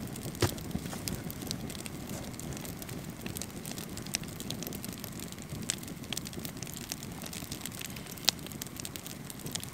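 Wood campfire burning, crackling with scattered sharp pops over a steady hiss; the loudest pops come about half a second in and again near the end.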